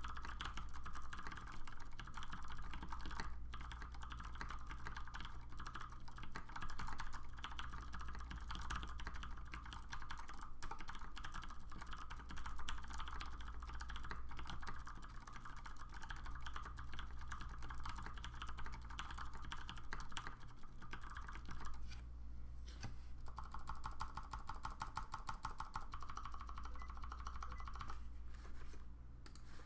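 Typing on an LZ Mini MX mechanical keyboard with Cherry MX Clear tactile switches on 65 g gold springs, lubed with Krytox 205/105, under PBT dye-sub keycaps: a dense, steady stream of keystroke clacks. The typing pauses briefly twice near the end.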